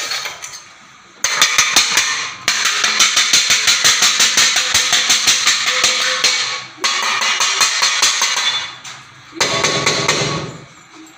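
Rapid rhythmic banging on a hard object, about four strikes a second, in several bursts with short breaks between them. The banging is kept up to shoo off an elephant.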